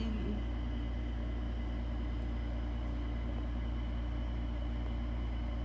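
Steady low hum of background noise, unchanging throughout, with faint constant higher tones over it.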